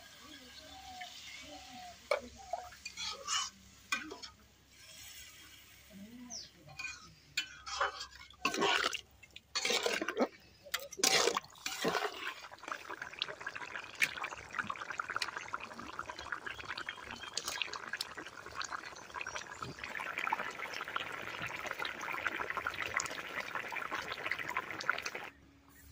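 Water poured from a mug into a wok of fried pumpkin, with irregular splashing and knocks as it is stirred in. About halfway through it gives way to the steady bubbling of the pumpkin curry boiling hard in the wok, which grows stronger and cuts off just before the end.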